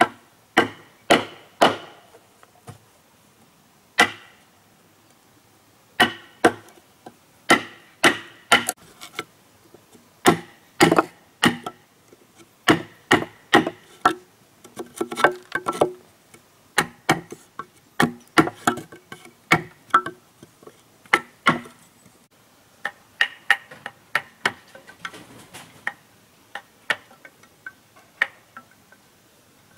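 Sharp knocks of a hand tool striking wood, coming unevenly about one or two a second, some in quick pairs, with short pauses between runs.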